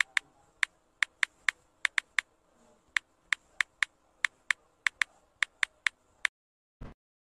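Keyboard-typing click sound effect: about twenty quick, sharp clicks at uneven spacing, roughly three a second, stopping a little after six seconds in, then a single short low thump near the end.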